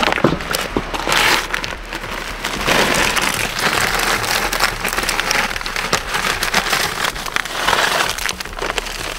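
Gritty scraping and clattering on stony ground, with many small sharp clicks, as stones and gravel are handled.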